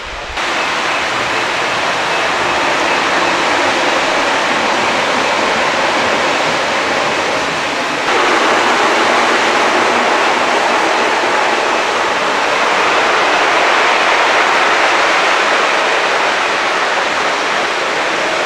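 Model trains running on a layout, a steady rushing rumble of wheels and motors on the track. A little under halfway through it gets louder and brighter.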